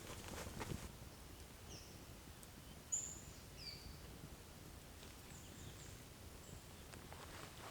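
Birds calling faintly: a handful of short, high chirps, several sliding down in pitch, scattered over a quiet background, with light rustling near the start and near the end.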